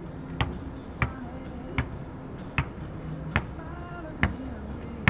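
A basketball being dribbled on a plastic sport-court floor laid over concrete: seven sharp bounces, a little under a second apart.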